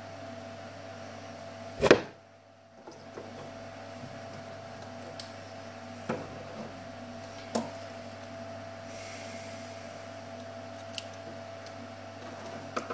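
Mini lathe running with a steady whine. About two seconds in there is a loud knock, then a brief hush, and the whine resumes with scattered sharp metal clicks as small parts are handled.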